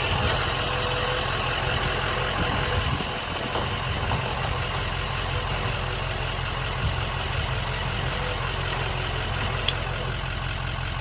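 Diesel engine running steadily at idle.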